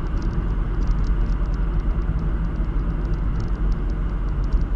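Road and engine noise heard from inside a moving vehicle: a steady low rumble with faint scattered clicks.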